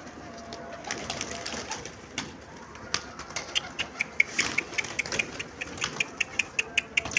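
Dandarawi chickens in their pen: a few scattered clicks, then from about three seconds in a fast, even run of short sharp ticks, about five a second.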